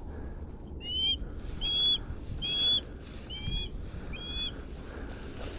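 A falconry hawk calling five times in a row, short thin high-pitched calls repeated a little under one a second, over a low steady rumble.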